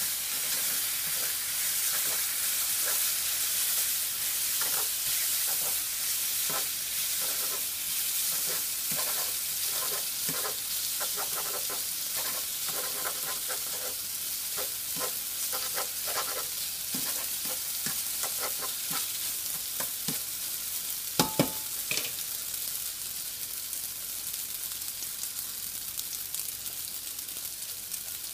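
Noodles sizzling as they fry in a nonstick frying pan, stirred and tossed with a silicone spatula in many quick scraping strokes over most of the time. Two sharp clicks, the loudest sounds, come a little under a second apart later on, after which only the frying sizzle remains.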